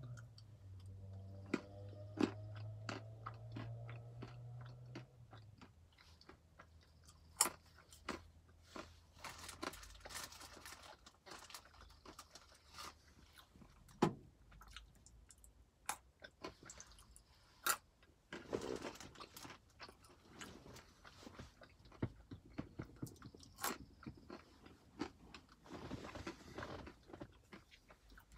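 Almonds being chewed close to the microphone: irregular sharp crunches as the nuts are bitten and ground between the teeth. A low hum sounds underneath for the first few seconds.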